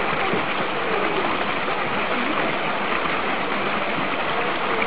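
Steady rushing noise.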